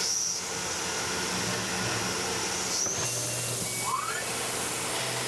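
Tormach 1100 CNC mill at work, heard mostly as a steady hiss of air from the brass coolant nozzle aimed at the end mill. A short rising tone comes about four seconds in.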